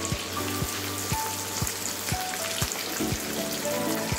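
Background music with a steady beat, about two beats a second, over the hiss of sliced onions frying in oil in a pan.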